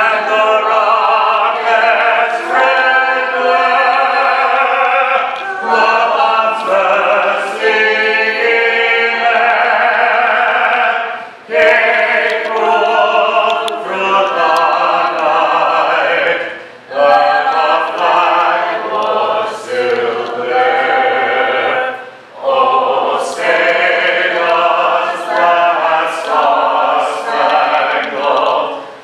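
Several voices singing together in a small vocal group, in long sung phrases broken by short pauses for breath.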